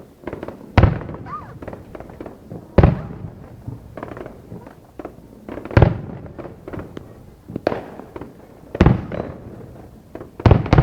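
Aerial firework shells bursting in a New Year fireworks display: about six loud booms at irregular intervals of one to three seconds, each trailing off, with smaller crackling pops between them.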